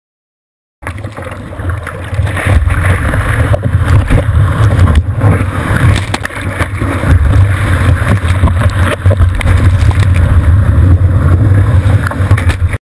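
Churning surf and rushing water heard on a GoPro Hero2 in its waterproof housing as it moves through breaking whitewater: a loud, dense rumble with heavy low-end buffeting that starts suddenly about a second in, grows louder a couple of seconds later, and cuts off abruptly near the end.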